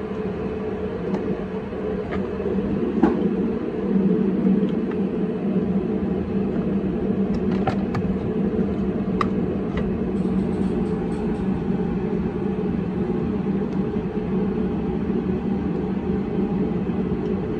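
A steady low machine hum, with a few faint clicks from wiring and plastic trim being handled under a car's dashboard.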